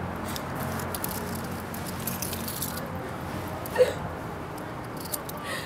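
Steady outdoor urban background noise with scattered light clicks and rustles, and one brief sharp sound about four seconds in.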